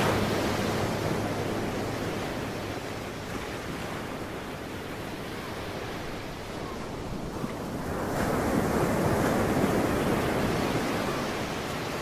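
Ocean waves surging and receding: one wash fades away, and the next one builds up about eight seconds in.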